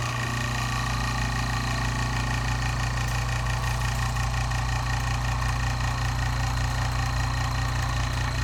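Small electric air compressor running steadily with a low hum, pumping up its little air tank toward the pressure switch's cut-off.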